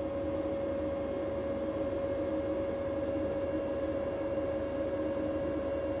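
Cooling fans of a 5 kW SAKO hybrid solar inverter, 6-watt 12 V fans, running steadily at full speed: an even airy whir with a constant mid-pitched hum on top. The fans run at maximum speed all the time, whatever the inverter's temperature, for lack of any temperature-based speed control.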